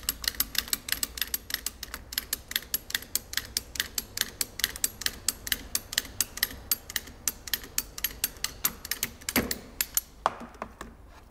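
Ratchet cable cutter clicking rapidly, about five clicks a second, as its handles are pumped to shear through a thick low-voltage neutral cable. Two louder clunks come near the end.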